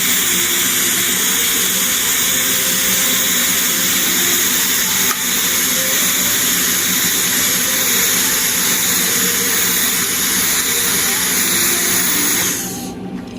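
TIG welding arc hissing steadily with a low hum underneath, as the torch is weaved along a bead. Near the end the arc cuts off suddenly.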